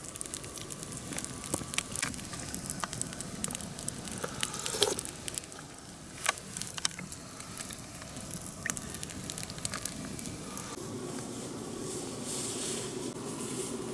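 Campfire crackling, with irregular sharp pops and snaps of burning wood.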